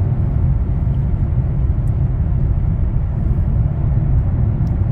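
Steady road and wind noise inside the cabin of a 2023 Toyota Camry XSE at highway speed on a windy day, a low even rumble with a lighter hiss above it.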